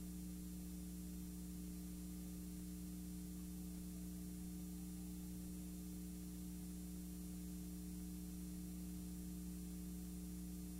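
Steady low electrical hum with faint hiss underneath, unchanging, with nothing else heard.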